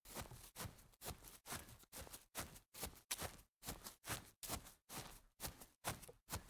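Fast footsteps of sneakers on grass, an even run of about two and a half steps a second.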